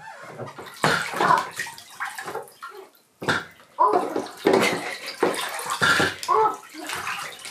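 Bathwater splashing and sloshing in a bathtub in irregular bursts as a child moves and plays in it.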